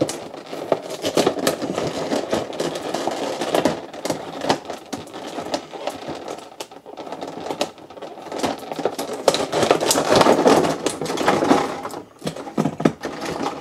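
Sticky tape being peeled off clear plastic blister packaging, with the plastic being handled: a steady run of rapid crackling and clicking.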